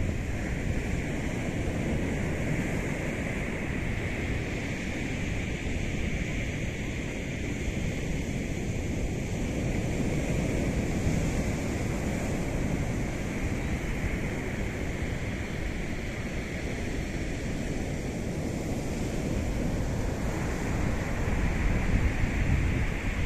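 Atlantic surf breaking on a sandy beach, a steady wash of waves, with wind buffeting the microphone in a low rumble. The surf grows a little louder near the end.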